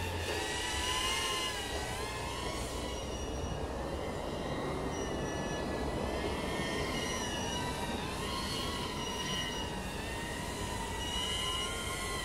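Brushless motors and three-blade props of a 3-inch FPV miniquad (DYS 1306 4000KV motors) whining, several pitches rising and falling together as the throttle changes.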